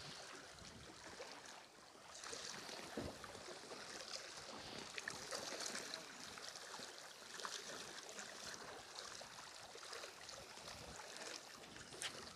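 Small sea waves washing against breakwater rocks, faint, rising and falling every second or two, with scattered light ticks and a sharper click near the end.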